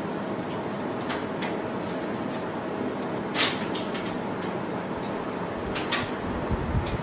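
Steady background hum and hiss with a few sharp clicks and knocks, the loudest about three and a half seconds in and two close together near the end.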